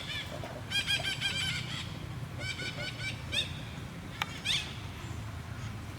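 Monkeys giving bursts of quick, high, squeaky calls, several notes in a row, repeated a few times. A sharp click comes about four seconds in, followed by a rising squeal.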